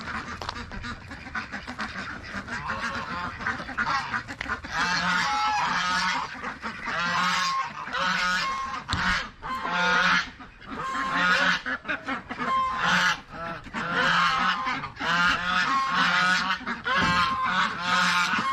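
A flock of white domestic geese honking over and over, many calls overlapping into a noisy clamour that grows busier a few seconds in. The flock is calling at feeding time as feed is poured out for them.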